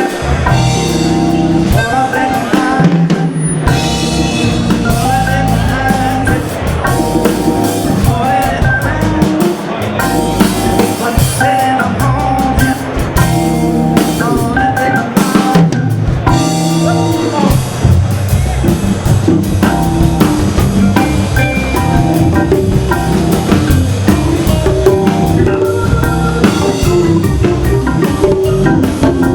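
A band playing live: Hammond organ chords and lines over a drum kit with snare, rimshots and bass drum.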